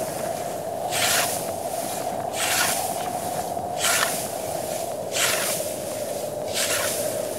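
Dry wheat stalks being cut by hand with a sickle: a sharp rustling swish with each stroke, five strokes about every second and a half, over a steady droning tone.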